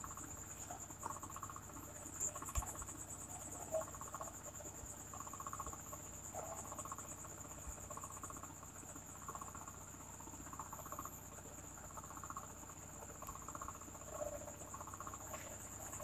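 Faint, steady high-pitched trilling of a cricket, with softer repeated chirps lower down and a couple of small clicks.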